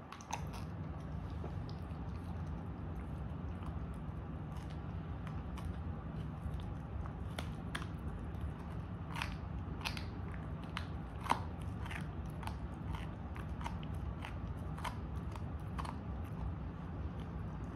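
A dog chewing and gnawing on a chew, with irregular crunching clicks of its teeth and one sharper crack about two-thirds of the way through, over a steady low hum.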